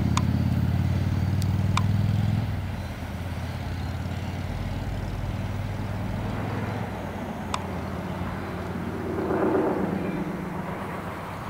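Low, steady vehicle rumble that drops off suddenly about two and a half seconds in, then a quieter rumble with a few sharp ticks and a brief swell near the end.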